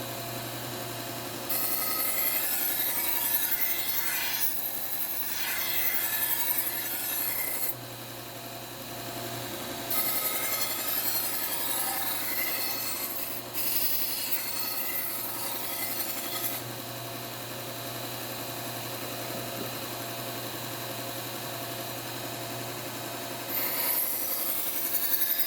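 Bucktool slow-speed bench belt sander running with a steady hum while a knife blade is drawn across the moving abrasive belt, each pass a hissing grind lasting several seconds. Three grinding passes, about a second in, around ten seconds in and near the end, with only the motor running in between.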